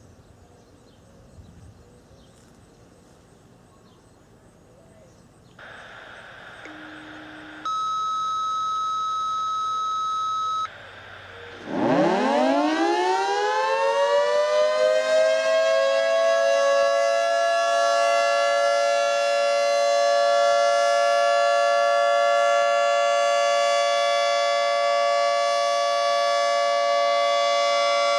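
A radio scanner's hiss with a brief low tone, then a steady high activation tone for about three seconds. About twelve seconds in, a Federal Signal 3T22 three-tone electromechanical siren winds up in a rising chord and settles into a steady alert tone that holds loud.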